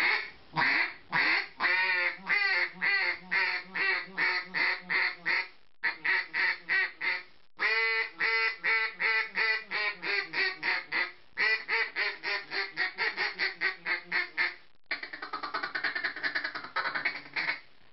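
Loud, higher-toned field-style mallard duck call blown by mouth: three runs of quacks, then a fast chatter of rapid notes for the last few seconds.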